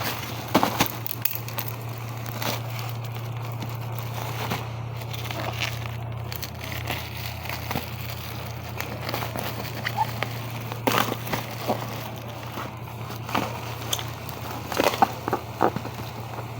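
Plastic packaging crinkling and crackling in irregular bursts as a parcel is handled and opened, over a steady low hum.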